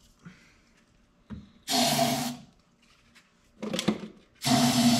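Aerosol can sprayed into the open intake of the Datsun B210's engine in two short hissing bursts, one about two seconds in and one near the end: priming the engine before its first start attempt.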